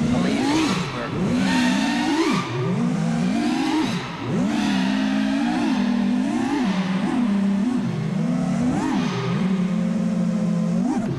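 Brushless motors of a 5-inch 6S FPV freestyle quadcopter whining, the pitch sweeping up and down again and again as the throttle is punched and chopped, then holding steady near the end.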